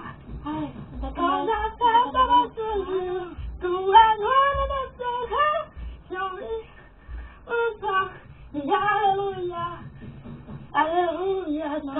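A child singing in a high voice, in several short phrases with held, wavering notes and brief pauses between them.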